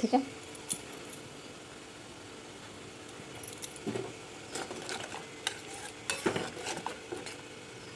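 Spoon stirring milk simmering in a pan, with scattered clinks and scrapes against the pot from about three and a half seconds in, over a faint steady hiss.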